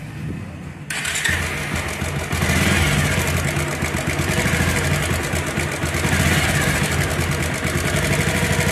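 Motorcycle engine started about a second in, then idling steadily with a fast, even tapping from the cylinder head. The mechanic traces this tapping to a slack cam chain tensioner, which he says is put right by adjusting it.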